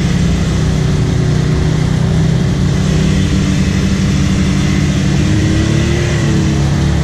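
Can-Am Maverick X3 Turbo side-by-side's turbocharged three-cylinder engine running at a steady pull while wading through deep water. Water rushes and splashes against the machine the whole time.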